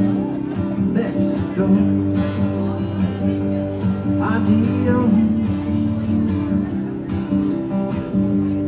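Strummed acoustic guitar playing an instrumental passage of a live song, after the vocal line ends.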